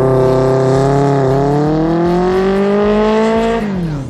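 Vintage Honda CB750's inline-four engine through a 4-into-1 exhaust, revved up and held high with a small dip about a second in, then climbing steadily before dropping quickly back to idle near the end.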